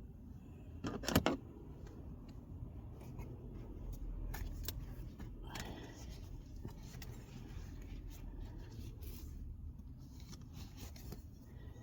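Small clicks and rustles of a leather gear stick gaiter being handled and fitted onto its plastic trim surround, with two louder clicks about a second in, over a low steady hum.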